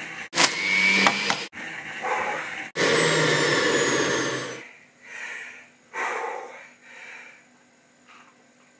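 Electric juicer motor running with a steady whirr, broken up by several abrupt edits, then stopping about four and a half seconds in; a few shorter, softer sounds follow.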